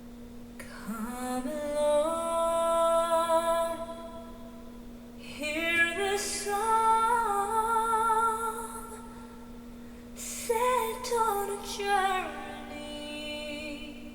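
Female singer's recorded voice in three slow phrases of long held, gently wavering notes, over a steady low sustained note, played back through hi-fi loudspeakers and picked up by room microphones.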